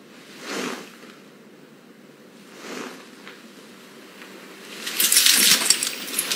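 A crowd of people lunging in to seize a man: soft rustles of clothing and movement, then about five seconds in a loud, dense burst of scuffling and clothing noise as they grab him.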